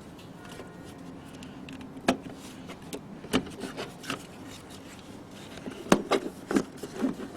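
Irregular clicks, knocks and scraping as hands and tools work on the battery fittings in a car's engine bay. The knocks come one at a time, a few seconds apart, and are busiest near the end.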